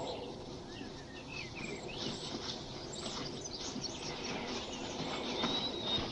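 Birds chirping and twittering in short scattered calls over a steady background hiss, with one brief high whistle about five seconds in.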